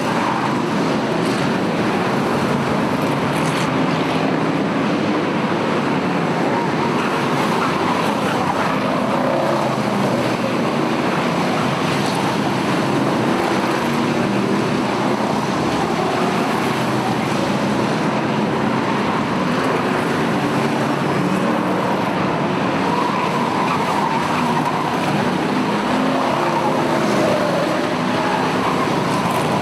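A field of V8 enduro stock cars racing on a paved oval, many engines running together in a steady mix that never lets up.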